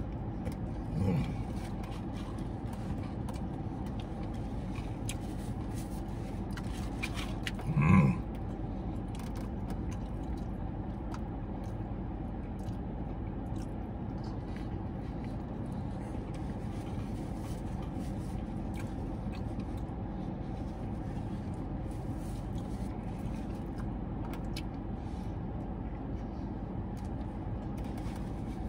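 Steady low hum of a car cabin with faint chewing and scraping sounds of a man eating fried chicken. A short hum from his voice comes about a second in, and a louder one about eight seconds in.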